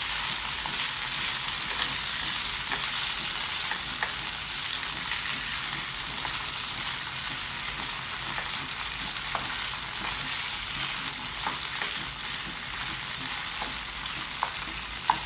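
Marinated boneless chicken pieces sizzling steadily as they shallow-fry in oil in a frying pan, with scattered light taps and scrapes of a wooden spatula turning the pieces, and a sharper knock near the end.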